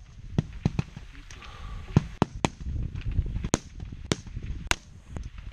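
Rifle shots from other competitors along the firing line, about ten sharp cracks at irregular intervals during a timed prone string.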